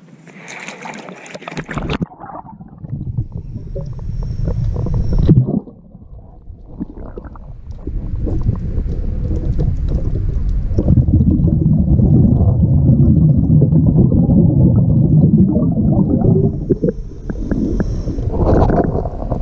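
Scuba diver breathing underwater through a regulator: long stretches of exhaled bubbles rumbling and gurgling, with a thin hiss of inhalation about four seconds in and again near the end. Water splashes briefly at the start as the camera goes under.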